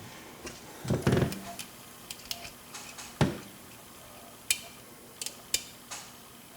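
Lock picking: a pick working the pins of a Corbin Russwin mortise cylinder held in a false set, giving scattered small sharp metallic clicks and a couple of duller knocks near the start.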